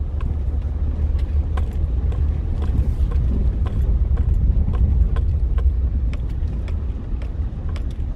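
Vehicle driving over a rough dirt off-road trail, heard from inside the cabin with the windows down: a steady low rumble of engine and tyres, with frequent irregular sharp clicks and knocks as it goes over the rough ground.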